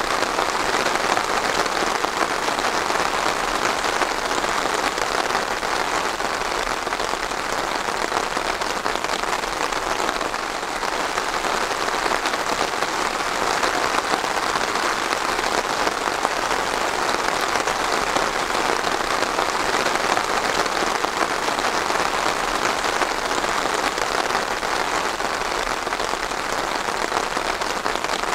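Steady rain falling and pattering on a surface, an even, unbroken hiss of many drops.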